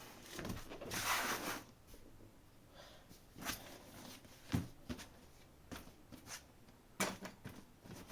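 A box being moved about and set down on a table: a sliding, rustling noise about a second in, then scattered knocks and taps as it and other objects are shifted.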